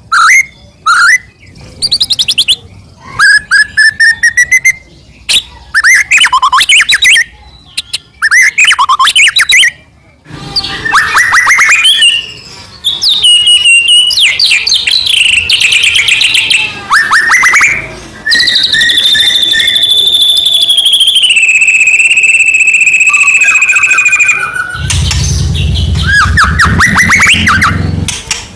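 White-rumped shama (murai batu) singing a loud, varied song: rising and falling whistled sweeps, fast trills and rapid note strings, with a long held whistle a little past halfway that steps down in pitch.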